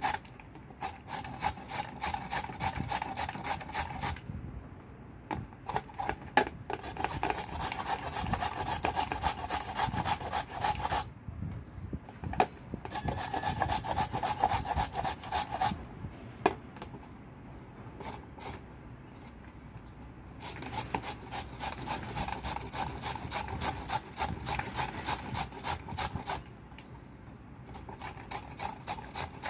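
Raw sweet potato being shredded on a stainless steel box grater: rapid rasping strokes, about three a second, in runs of several seconds broken by a few pauses.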